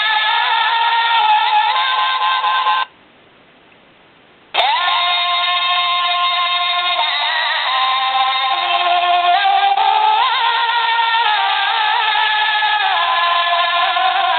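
Electronic alarm clock sounding its alarm through its built-in speaker: a sung, voice-like melody of held and sliding notes. About three seconds in it breaks off for nearly two seconds, then resumes with a rising note.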